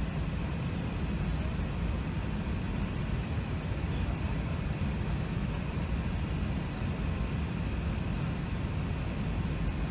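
Cabin noise inside an Airbus A380 on the runway with its engines running: a steady low rumble with a faint steady high tone above it.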